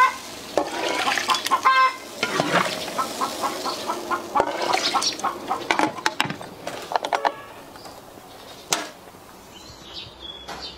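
Chickens clucking in quick runs of short calls, with metal clicks and clacks of a pressure cooker's lid being set on and closed; the clucking dies down after about seven seconds and one sharp click comes near the end.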